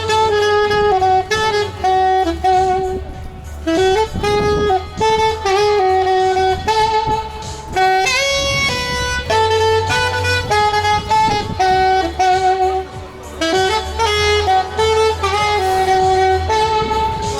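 Background music: a saxophone melody over a steady bass line, in a smooth jazz style.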